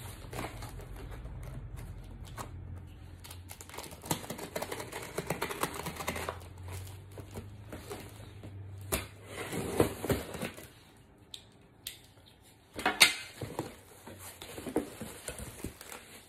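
Cardboard shipping box being opened by hand: irregular scraping, scratching and clicking at the taped flaps and cardboard, with a short, sharp, louder tearing sound near the end.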